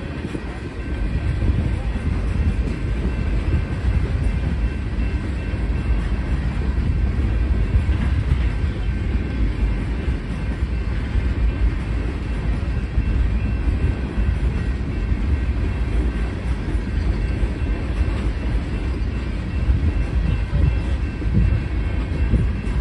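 Freight train tank cars rolling past: a steady low rumble of steel wheels on rail.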